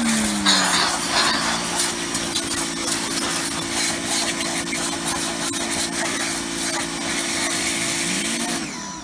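Titan electric pressure washer running under load, its motor and pump humming steadily under the hiss of the water jet spraying onto a plastic sun lounger. The motor note slides lower just after the start, holds steady, and cuts off near the end as spraying stops.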